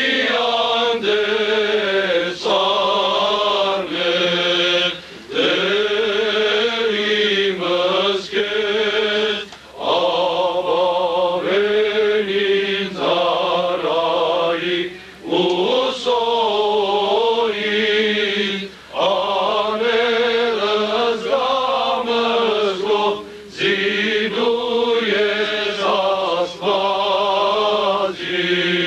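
A male cleric chanting an Armenian liturgical chant, a wavering, ornamented melody sung in long phrases with brief breaks for breath between them.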